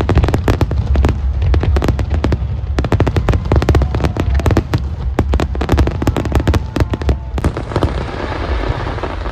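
Fireworks display: rapid crackling and popping of many shells over deep low booms. About seven seconds in, the crackle gives way to a steadier hiss.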